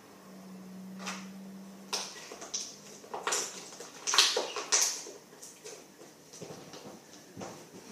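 Fluffy slime being squished and stretched in the hands, giving a run of sticky crackles and pops, loudest about four seconds in.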